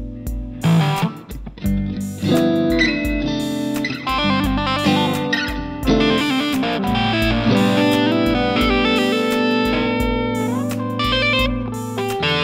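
Electric guitar, a Fender-style solid-body, played along with a full-band backing track that has a steady kick-drum beat and a bass line. About ten seconds in, one note glides upward.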